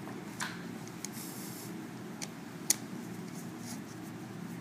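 Small clicks and scrapes of a screwdriver driving the screws that hold a copper heat-pipe heatsink onto a laptop video card, with the sharpest click about two-thirds of the way in. A steady low hum runs underneath.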